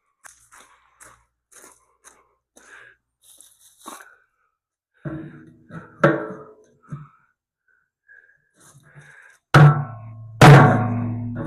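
Hammer blows on the steel loader bucket and its bolt-on grab-hook mount, each strike ringing on. Three lighter blows come about halfway through, then two heavy ones near the end; faint clicks of handling metal come before them.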